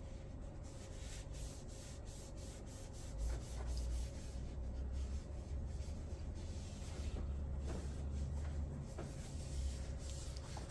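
A tissue rubbing and wiping, with dry scratchy rustles, as leaked aftershave splash is cleaned up. A low steady hum runs underneath.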